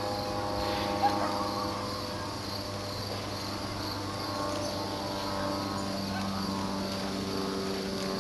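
Steady drone of a distant engine, with insects chirring high above it.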